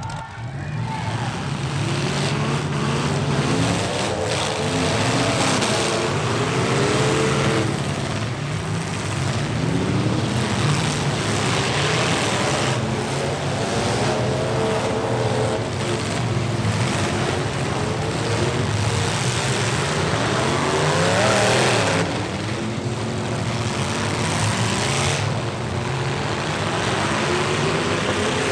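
Several stock pickup truck engines revving hard in a demolition derby, their pitch repeatedly climbing and falling as the trucks push and ram one another, with occasional bangs from the collisions.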